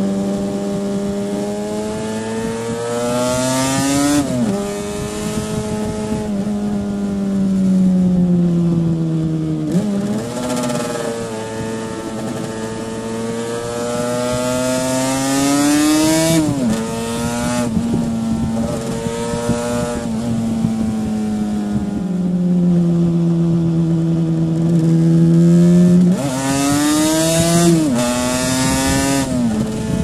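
Stock 1984 Yamaha RD500's 499 cc liquid-cooled V4 two-stroke engine under way. It climbs in pitch under throttle and drops sharply at each upshift, several times, with long falling stretches as the rider rolls off. Wind rush on the microphone swells during the pulls.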